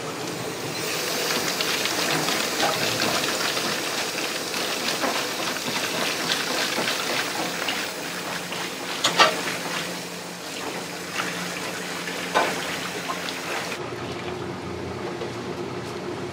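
Water running steadily from a kitchen tap into a sink, with a couple of brief knocks, stopping a few seconds before the end.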